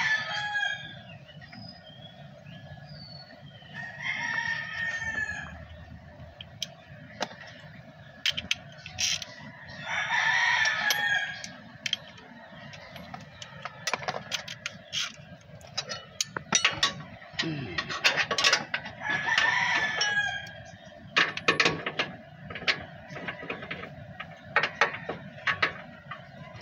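A rooster crows three times, each crow lasting a second or so, while short metallic clicks and clinks of wrenches come and go on the suspension work.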